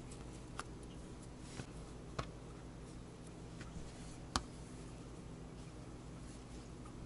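A few light clicks and taps from hands handling a wool felt strip and ribbon, the sharpest about four seconds in, over a steady low hum.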